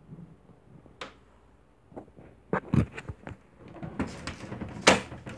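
Irregular knocks, clicks and rustling starting about a second in, the sharpest knocks about two and a half seconds in and again near the end.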